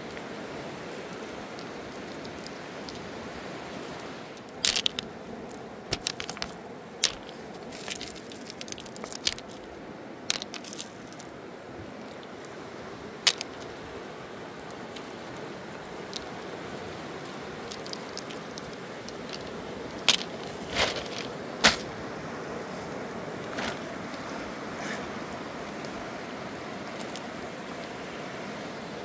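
Fast, silt-laden river rushing steadily. Sharp clicks and clacks of pebbles knocking together on the gravel bank come in scattered bunches from about four seconds in until about two-thirds of the way through.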